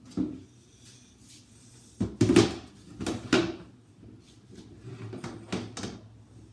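Handling noises at a fridge being cleaned: a short knock, then a few louder clatters and scrapes of plastic shelves or drawers being moved, about two, three and five and a half seconds in.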